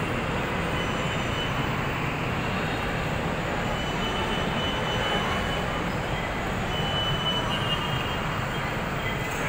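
Steady rumble of an MRT-3 train running through the station, with a faint high wheel squeal now and then.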